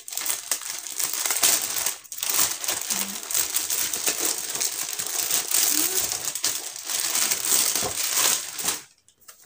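Clear plastic packaging bag crinkling and rustling steadily as it is handled and pulled off a fabric pen case, with a short lull about two seconds in. It stops abruptly about half a second before the end.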